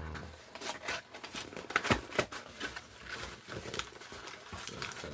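A mailed package being handled and opened: irregular rustling and clicks of box and packaging, with a sharper click about two seconds in.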